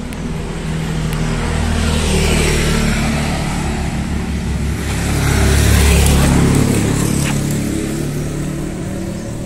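Motor vehicle engine passing on the road, its low hum growing louder to a peak about six seconds in and then fading.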